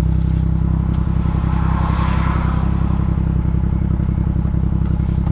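BMW M2's N55 turbocharged straight-six running steadily at low engine speed, with no revving. A brief rush of noise swells and fades about two seconds in.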